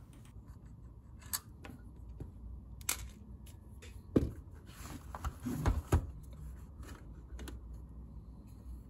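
Scattered clicks and light knocks, irregularly spaced, from a battery module's housing and a screwdriver being handled as the module's cover is taken off to expose its cells.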